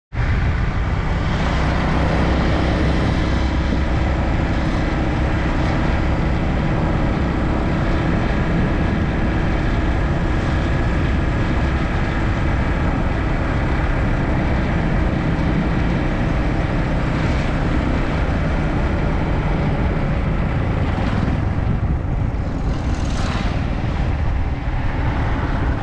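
Yamaha MT-15 motorcycle riding along steadily at road speed: its 155 cc single-cylinder engine running under a constant rush of wind over the microphone.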